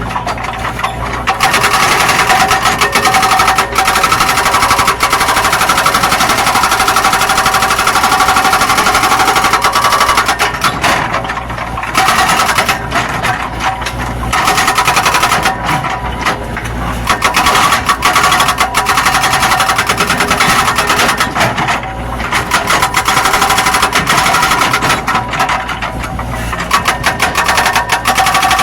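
Zoomlion excavator's diesel engine and hydraulics working while digging, with a rapid, steady clatter and a whine. The sound eases off briefly several times as the load changes.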